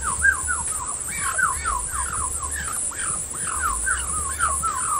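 Female Muscovy duck giving a run of short, falling chirps, about four a second.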